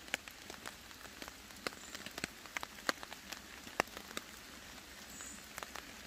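Rain falling on a tarp stretched overhead: a steady hiss broken by irregular sharp taps of single large drops.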